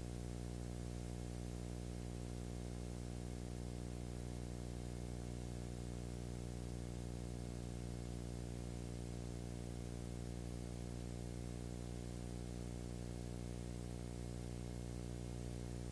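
Steady low electrical hum with a stack of overtones over faint hiss, unchanging throughout; nothing from the filmed scene is heard.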